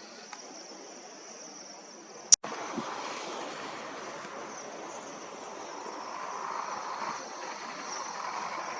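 Gusty wind rushing, a steady noise that swells and eases. A sharp click about two seconds in, after which the wind is louder.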